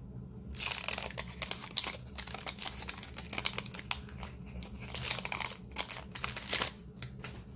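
Wrapper of a trading card pack being torn open and crumpled, a dense run of crackling crinkles that stops shortly before the end.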